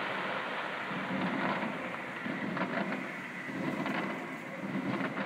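Fireworks going off: low rumbling booms about once a second, with sharp crackles scattered among them over a steady hiss of crackling.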